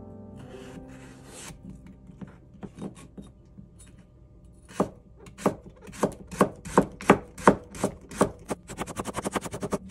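Kitchen knife chopping food on a cutting board: a short rustle of handling near the start, then evenly spaced knife strokes about two to three a second that speed up near the end.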